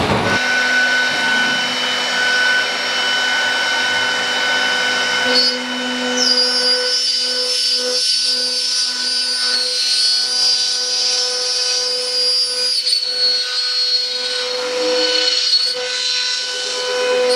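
CNC router spindle running at speed and carving a wooden plank: a steady high whine with constant tones, and a higher tone joining about six seconds in.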